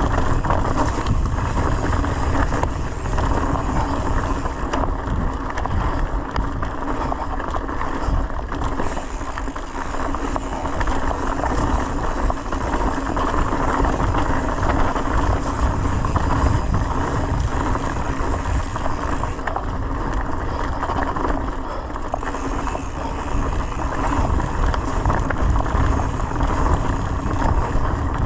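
Mountain bike rolling down a leaf-covered dirt trail: continuous tyre and bike noise with wind rush on the microphone.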